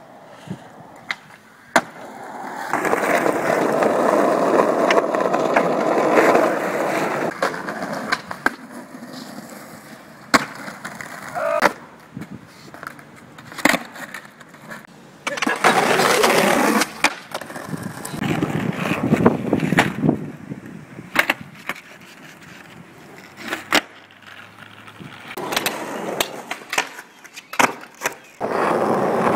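Skateboard wheels rolling over concrete and asphalt in several stretches of a few seconds each. Sharp clacks of the tail popping and the board landing are scattered throughout.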